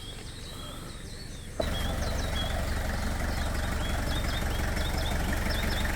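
Small birds chirping repeatedly. About one and a half seconds in, a louder steady low engine rumble cuts in abruptly and carries on under the chirps.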